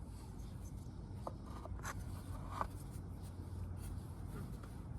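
Faint handling noises from work on the engine's plastic ignition parts: light rubbing and a few small clicks, over a steady low background hum.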